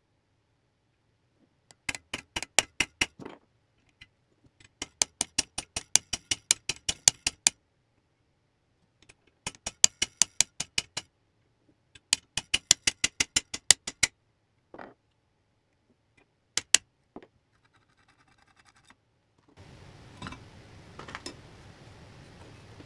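Runs of rapid, sharp metallic clicking, about eight clicks a second, come in four bursts of one to three seconds each. A few single clicks follow. Near the end a low steady hum comes in, with a couple of knocks.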